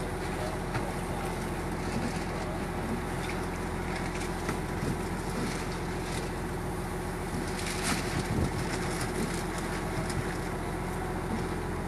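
Fishing boat's engine running steadily with a low hum, under the swish and scattered clicks of a gillnet running out over the rail; a sharper knock about eight seconds in.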